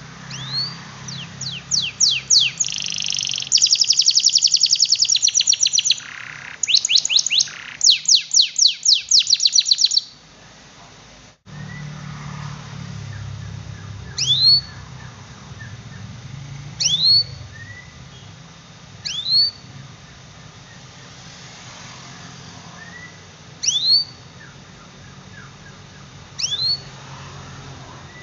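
Domestic canary singing: loud, fast trills of rapid sweeping notes for about ten seconds. After a brief break come single rising 'cuit' whistles every two to three seconds, over a low steady hum.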